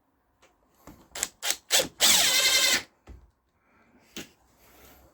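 A few sharp clicks, then a power drill-driver runs in one short burst of under a second, driving a screw in to fit a drawer fastener, followed by a couple of light knocks.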